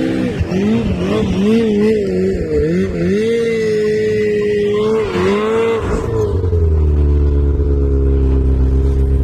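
An off-road vehicle's engine held at high revs, its pitch wavering up and down as it strains to get a stuck vehicle moving. About six seconds in it drops back to a steady idle.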